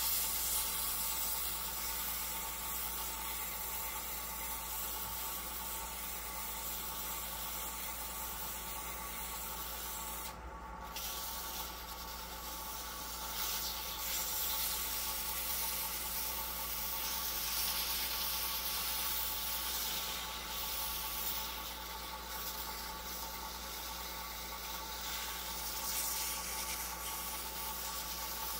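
Sandpaper hissing against a wooden pen blank spinning on a wood lathe's mandrel, with the lathe motor humming steadily underneath. The sanding stops briefly about ten seconds in, then resumes.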